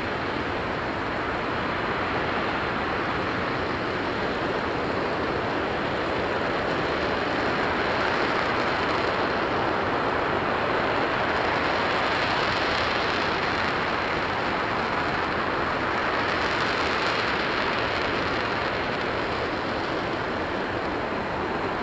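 NASA RS-25 liquid-hydrogen/liquid-oxygen rocket engine firing steadily in a hot-fire test, a continuous dense roar of exhaust noise. It grows a little louder through the middle.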